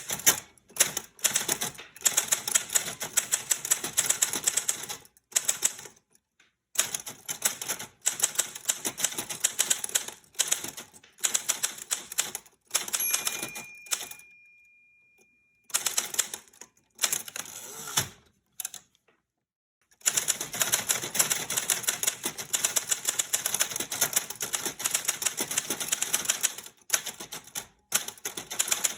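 Typewriter keys striking in fast bursts of clicks, broken by short pauses. About halfway through, a single bell rings and fades out, and a sharp knock follows a few seconds later.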